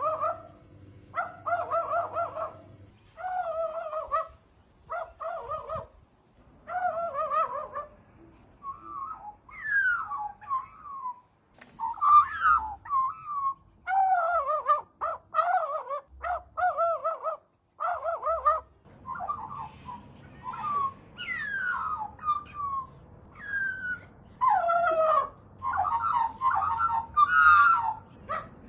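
A crow mimicking a dog, giving repeated short bark- and whimper-like calls in bursts, mixed with a few falling whistled notes.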